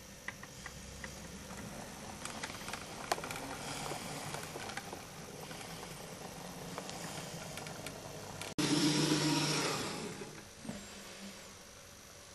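Model Class 43 HST power car running on the track: a steady motor whirr with scattered clicks, growing louder as it approaches. After an abrupt break about eight and a half seconds in, a louder rush that fades away as it moves off.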